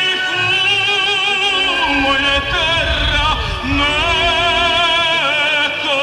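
Music: operatic-style singing, the voice held on long notes with a wide vibrato.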